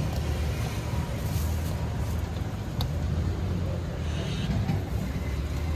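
Steady low rumble of street traffic, with a single brief click about halfway through.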